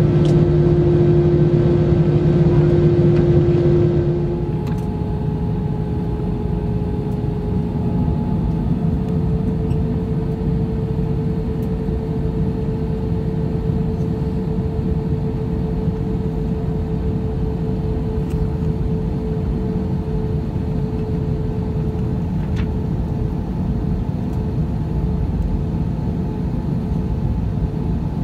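Airbus A320 jet engines and airflow heard inside the passenger cabin: a steady rushing drone with a held engine hum. About four seconds in, the sound changes abruptly to a different, slightly higher hum that slowly rises.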